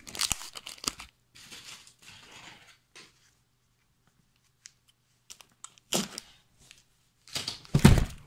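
Packing tape being peeled and torn off a cardboard box, in irregular rustling, ripping bursts. A quieter stretch with a few small clicks falls in the middle, and a louder burst with a thump of the box being handled comes near the end.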